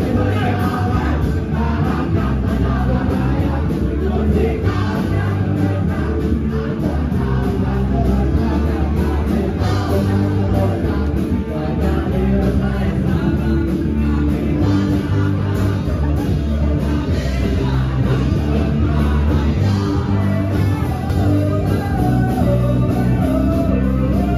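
Loud music with singing, a strong bass and a steady beat.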